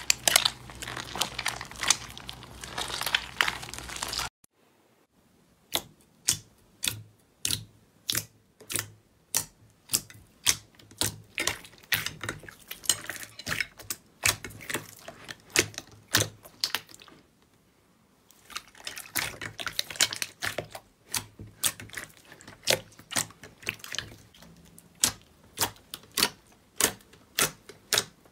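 Wet squelching as green slime is squeezed in a bowl of liquid, cutting off about four seconds in. Then clear purple slime is pressed and poked with fingertips, making sharp wet clicks and pops about one to two a second, with a short pause in the middle.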